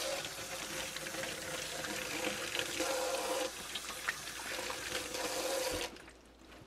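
Kitchen sink faucet running steadily while hands are washed under the stream, then shut off near the end.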